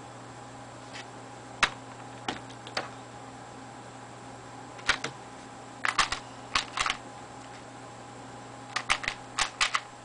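Plastic 3x3 Rubik's cube being turned by hand: quick clacking clicks of the layers snapping round, in short clusters a second or so apart.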